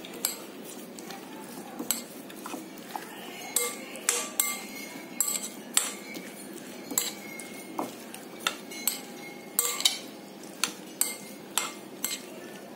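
A metal spoon clinking and scraping against a glass mixing bowl as a chopped salad is stirred. The clinks are irregular, about one or two a second, some leaving a short ring.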